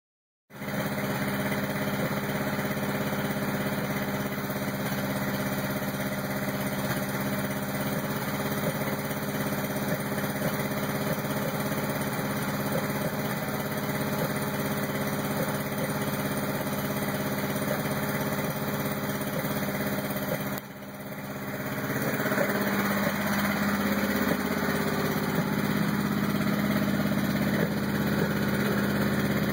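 1986 Honda CRX's four-cylinder engine idling roughly. About two-thirds of the way through, the sound briefly dips and then comes back louder.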